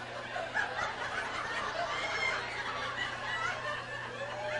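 A congregation laughing, many voices overlapping in scattered bursts, over a steady low electrical hum.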